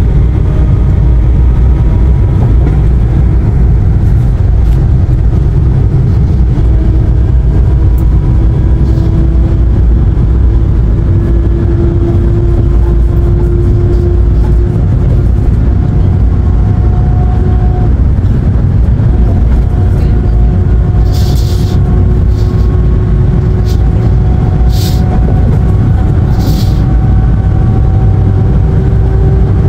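Cabin noise inside a moving passenger van: a steady low rumble of road and engine, with a faint engine hum that slowly rises in pitch as the van gathers speed. A few brief hissing ticks sound in the second half.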